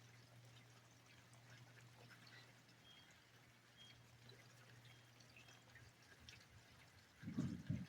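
Near silence with faint dripping rain and a steady low hum, broken near the end by a brief, loud low thump.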